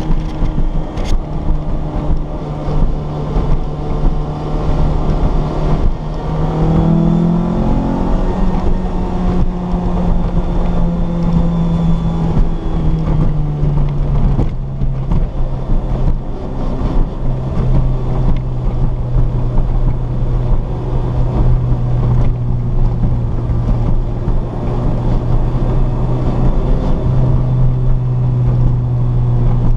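Lotus Exige engine heard from inside the cabin, running steadily over a rush of noise. Its note climbs about six seconds in, then drops to a lower, steady pitch about fourteen seconds in.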